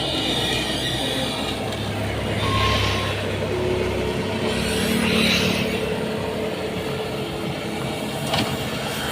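Bobcat skid-steer loader's engine running steadily while working. Three short hissing surges rise over it, and there is a single knock near the end.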